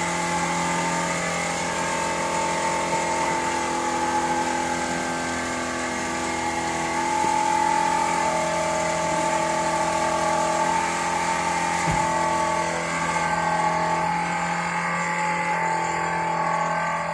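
Workshop machinery running steadily: a droning hum with a high hiss over it, its pitch shifting slightly a few times.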